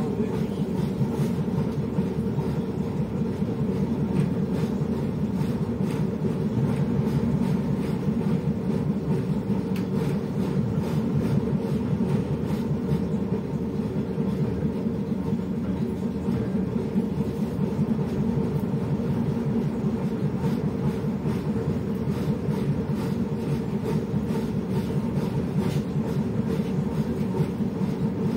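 LiAZ-677M bus's V8 petrol engine idling steadily while the bus stands still, heard inside the cabin as an even low hum.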